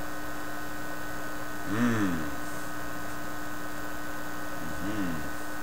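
Steady mains hum and buzz over hiss from a Viking solid-state record player's amplifier and speaker, turned up with no record playing. It is powered through an isolation transformer with the plug reversed. A man's voice murmurs briefly twice, about two seconds in and near the end.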